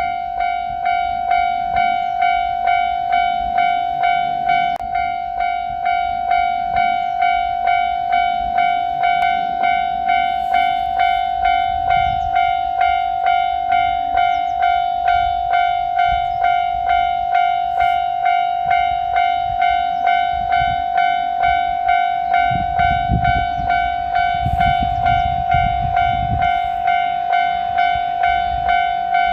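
Japanese level-crossing warning bell ringing its repeated electronic 'kan-kan' ding, about one and a half strikes a second, warning that a train is coming. A low rumble rises beneath it from about 22 seconds in.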